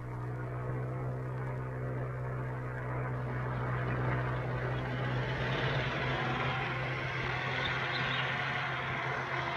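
Car engines running steadily with tyre noise on a dirt road, growing gradually louder as the cars approach.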